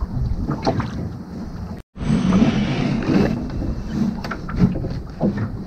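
Water rushing and lapping along the hull of a small sailing dinghy under way, with a few light knocks from lines and fittings being handled. The sound cuts out completely for a moment about two seconds in.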